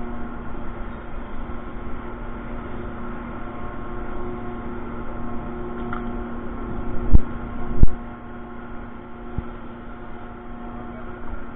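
Ship's deck machinery running with a steady hum of several held tones. Two heavy thumps come about seven seconds in, less than a second apart.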